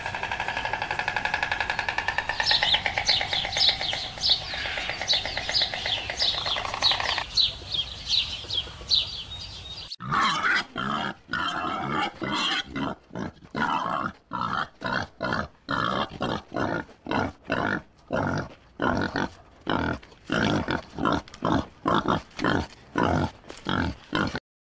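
Animal calls from two different animals. First comes a run of fast, pulsing pitched calls; about ten seconds in it cuts to short, repeated calls, about two a second, which stop abruptly near the end.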